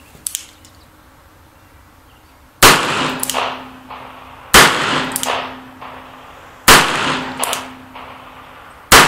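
Nagant M1895 revolver (7.62x38R) firing four shots about two seconds apart, loaded with light handloads: 100-grain cast bullets over 3 grains of Titegroup, about 900 feet per second. Each shot is followed by a ringing clang, typical of a steel gong target being hit.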